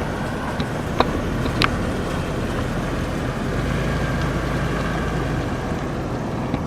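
A car engine running steadily, with a low rumble, and a couple of faint clicks about one and one and a half seconds in.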